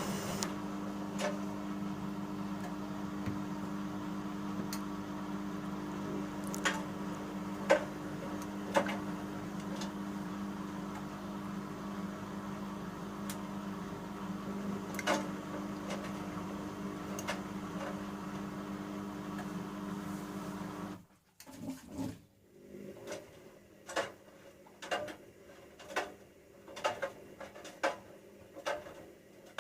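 Bauknecht front-loading washing machine running mid-cycle with a steady hum and scattered light clicks. About two-thirds of the way through, the hum cuts off suddenly, and a series of light knocks and clicks follows, roughly one a second.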